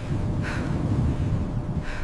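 Steady low wind rumble with two short breathy puffs, about half a second in and near the end.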